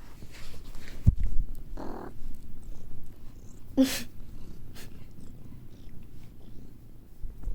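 Cat purring with a steady low rumble, broken by a couple of short grunts near the second and fourth seconds. A sharp thump sounds about a second in.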